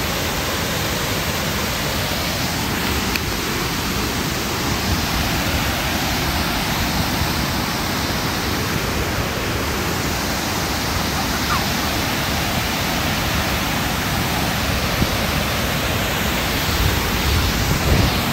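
Steady, dense rush of Nugget Falls, a large waterfall, heard close to its base, with a few low bumps near the end.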